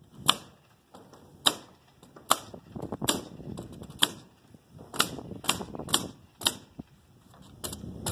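Pneumatic nail gun firing nails into roof sheathing: about ten sharp shots at uneven intervals, roughly one a second, some coming in quicker pairs.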